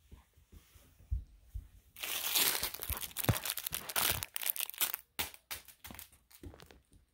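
Puppy's fur and face rubbing against the camera's microphone: a dense crackling rustle lasting about three seconds, starting about two seconds in, followed by a run of scattered clicks and bumps.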